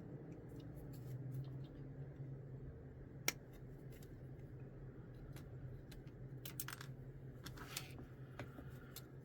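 Sprue cutters snipping plastic miniature parts off a kit sprue: scattered sharp clicks, the loudest about three seconds in, with a cluster of snips and plastic handling around six to eight seconds in, over a faint steady low hum.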